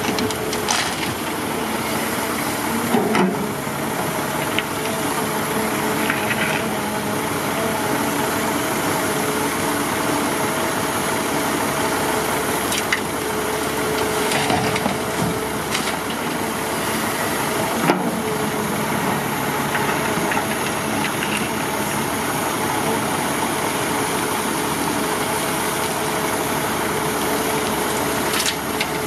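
Heavy vehicle engine running steadily at an even speed, with a few brief knocks.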